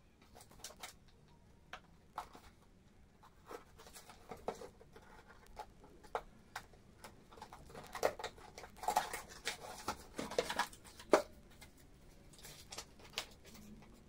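Small handling noises off to the side: scattered light clicks and taps, with a denser patch of scratchy rustling about eight to eleven seconds in.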